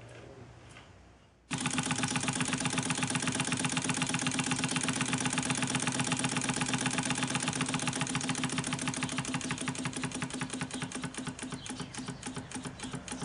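Model traction engine's steam engine running fast on compressed air, a rapid, even chuffing of exhaust beats that starts suddenly about a second and a half in. The beats slow slightly and get a little quieter near the end.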